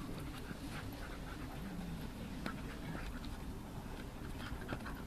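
Dogs panting while they run and play, with scattered short faint rustles and ticks over a steady low rumble.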